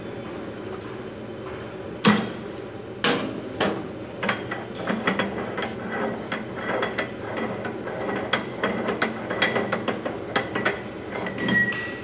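Irregular metallic clanks, knocks and clinks of steel parts being handled as the die is changed on a stainless-steel food machine, with the sharpest knock about two seconds in and a brief squeak near the end.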